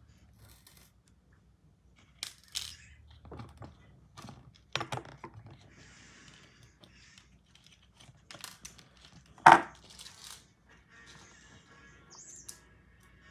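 Beads clicking and rattling in a clear plastic compartment organizer box as they are picked through by hand: scattered light clicks, with one sharp, loud click a little past halfway.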